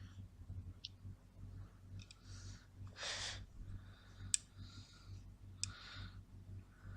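Small parts of a hard drive being handled and fitted by hand: a few sharp, light clicks a second or more apart, with soft hissing rustles between them.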